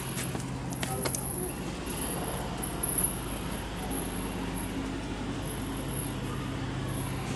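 Street ambience: a steady low hum of engine or traffic noise, with a few sharp clicks about a second in and faint voices.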